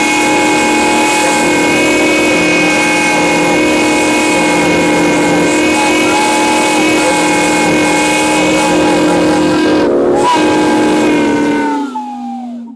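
Several steam whistles blowing together in a loud sustained chord of many tones, one of them wavering up and down in pitch. Near the end the tones slide down in pitch and fade as the blast dies away.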